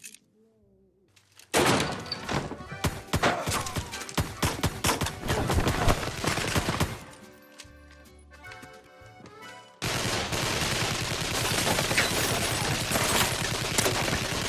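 Film gunfire: rapid shots in quick succession starting about a second and a half in, a short lull, then sustained heavy gunfire from about ten seconds in.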